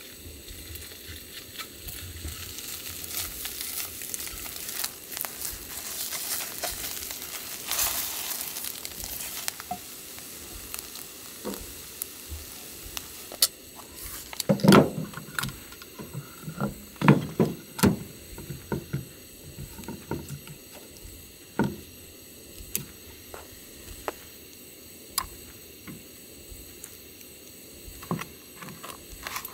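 Food sizzling in a pan for several seconds. After that comes a run of sharp clicks and knocks from camp cooking gear being handled, among them a hinged wooden case, loudest about halfway through.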